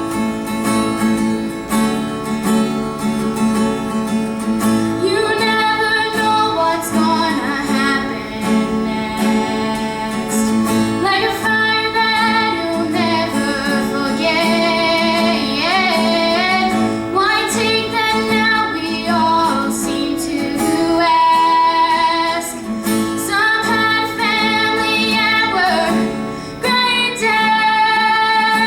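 A female voice singing a song to guitar accompaniment; the guitar plays throughout and the voice comes in about five seconds in.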